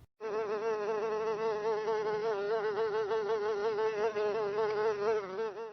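Housefly buzzing in flight, a steady hum that wavers slightly in pitch, starting about a quarter second in and stopping just before the end.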